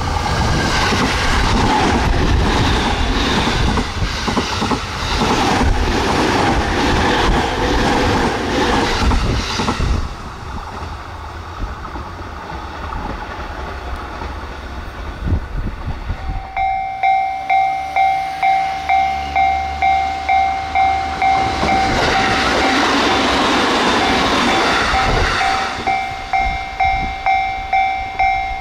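An electric train passes at speed, wheels clattering in a regular beat over the rail joints, then fades away. About halfway through, a level-crossing warning bell starts ringing, an even clang about twice a second, and a second train rushes past while it rings.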